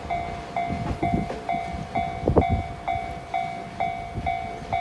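Japanese level-crossing warning bell ringing about twice a second, over the clatter of a freight train's wagons rolling past on the rails, with one louder wheel knock about halfway through.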